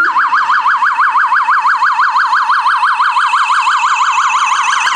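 Police car siren on a fast yelp, its pitch sweeping up and down rapidly, about seven times a second, loud and steady: the car is responding to an emergency call.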